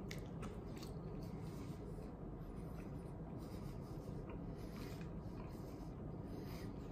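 Wooden chopsticks stirring and scraping noodles in an instant-noodle cup, with faint scratchy clicks scattered throughout over a low steady room hum.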